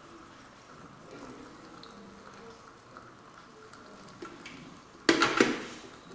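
Dental water spray rinsing an acid-etched tooth: a faint hiss with liquid sounds, then a brief, loud hissing burst about five seconds in that fades within about a second.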